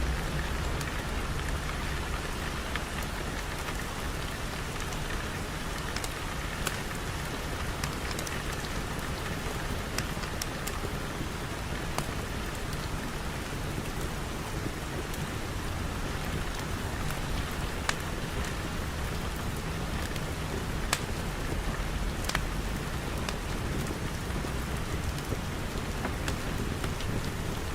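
Steady rain falling, with scattered sharp ticks of single drops or crackles.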